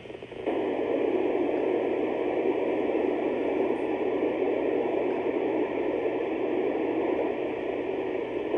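Steady FM static hiss from the Icom IC-705 transceiver's speaker, which is tuned near 437.79 MHz to the ISS repeater downlink. No voice is getting through. The hiss dips briefly right at the start.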